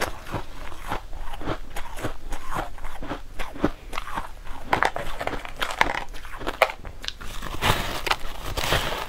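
Close-miked chewing and crunching of crushed ice, a quick irregular run of crisp crunches, with a bigger, denser crunch near the end as a chunk is bitten off.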